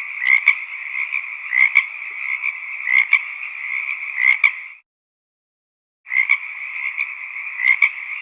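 A chorus of frogs croaking, a steady dense calling with louder calls standing out about every second and a half. Just past the middle the sound cuts off completely for about a second, then the chorus comes back as before.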